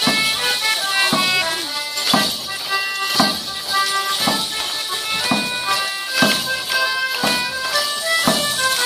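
Morris dance tune: a high piped melody over a sharp drum beat about once a second.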